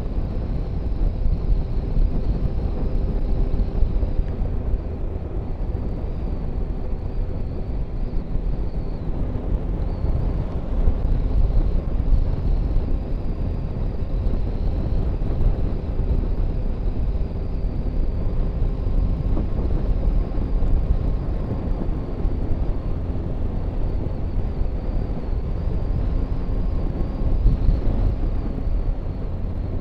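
Yamaha Tracer 9 GT's three-cylinder engine holding a steady note at cruising speed, under a steady rush of wind on the microphone.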